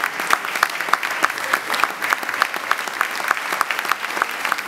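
Theatre audience applauding, with individual claps close to the microphone standing out several times a second over the dense clapping of the crowd.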